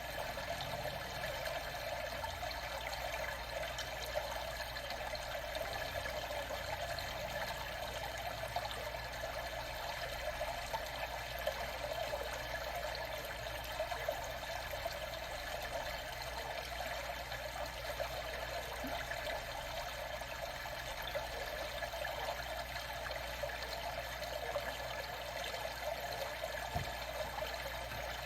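Water trickling steadily, an even running sound with no breaks.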